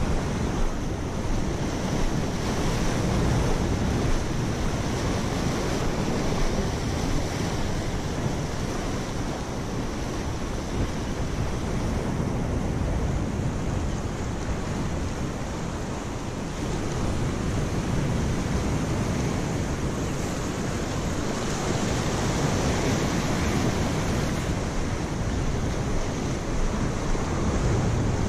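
Surf washing steadily against and over the jetty rocks, with wind buffeting the microphone.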